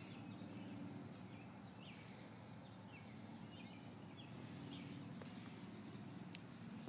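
Faint outdoor background: a steady low hum with scattered faint high chirps, likely distant birds, and a couple of light clicks near the end.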